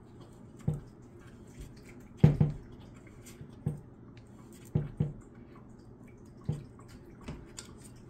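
A hand tool turning a fastener to tighten a wooden shelf into the rack frame gives light, irregular clicks and knocks, about eight in all, the loudest a little over two seconds in.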